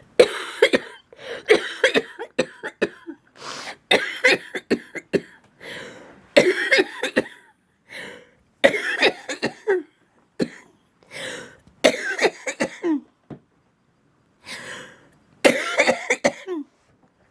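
A woman with cystic fibrosis in a long coughing fit: repeated coughs in clusters, with a short pause before a last run of coughs near the end.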